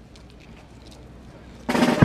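A brass and drum band strikes up suddenly and loudly near the end, brass chords over drums, after a low, quiet background.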